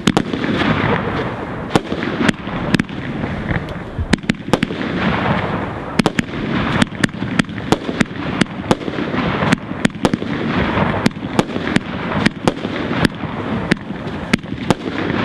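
Fireworks display: aerial shells and rockets going off in a string of sharp bangs over continuous noise. The bangs come faster and closer together in the second half.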